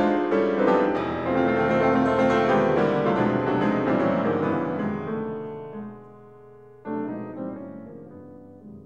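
Background piano music: full chords that die away a little past halfway, then one more chord is struck near the end and left to ring.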